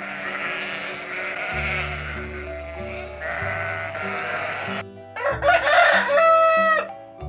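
Long, wavering bleats of a farm animal, then a loud rooster crow about five and a half seconds in, over background music with low sustained notes.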